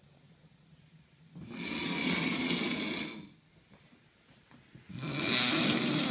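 A sleeping man snoring heavily: two long, rough snores about three and a half seconds apart, with quiet between them, the second starting about five seconds in.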